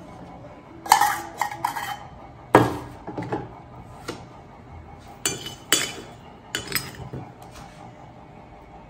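A metal spoon clinking and scraping against a metal pot and a ceramic plate as chocolate sauce is spooned and spread, giving a dozen or so sharp, irregular clinks. The loudest come about a second in and again about two and a half seconds in.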